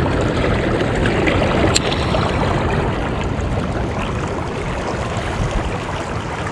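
Shallow river current rushing steadily past close to the microphone, a constant wash of moving water.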